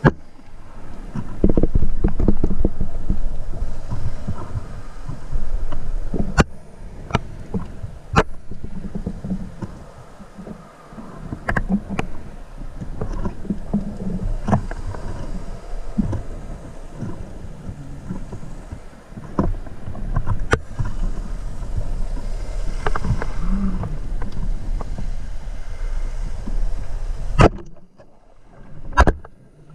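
Underwater camera sound on a breath-hold dive: a low rumbling water noise with scattered sharp clicks and knocks. Near the end it briefly goes much quieter, then picks up again.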